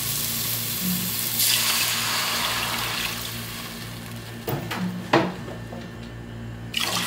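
Water poured into a hot pot of sautéed onion, carrots and green peas with whole spices, splashing for about three seconds and then fading. A few short knocks follow about four and a half and five seconds in.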